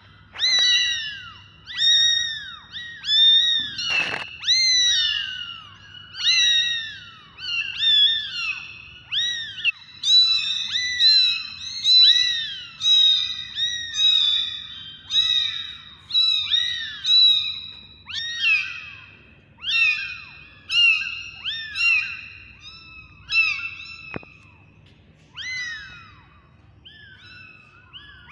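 Very young kittens meowing over and over in high, thin cries that rise and then fall, one to two a second. The calls often overlap as two kittens answer each other, and thin out near the end. A single sharp knock comes about four seconds in.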